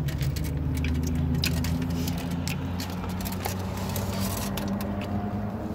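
Steady low hum of an idling car, overlaid with irregular crinkling of the burrito's aluminium-foil wrapper and chewing.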